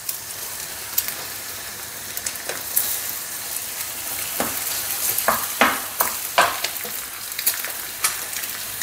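Scrambled eggs sizzling steadily in a frying pan, with scattered scrapes and knocks of a utensil stirring and handling the pan, thickest about halfway through.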